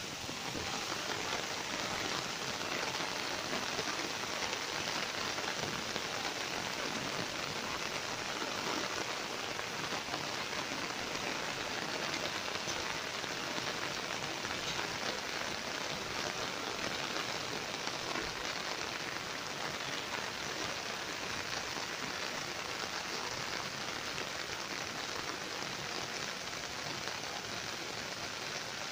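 Steady rain falling on foliage and grass, an even hiss of many drops.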